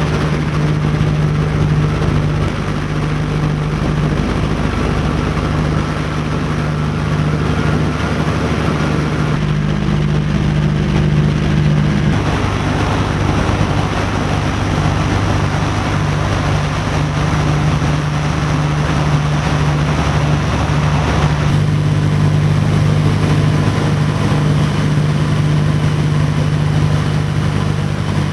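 Radial piston engines of a B-25 Mitchell bomber droning steadily in flight, heard from inside the aircraft. The drone's tone shifts abruptly a few times.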